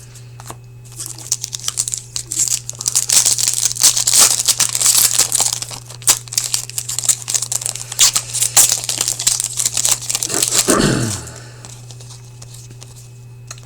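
Foil trading-card pack wrapper being torn open and crinkled by hand, a dense run of crackling and tearing that stops about ten and a half seconds in.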